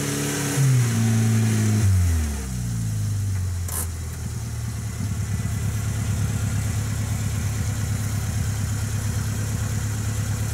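Lada 4x4's four-cylinder engine revved and held up for about two seconds, then dropping back to a steady idle. A single clunk a little under four seconds in.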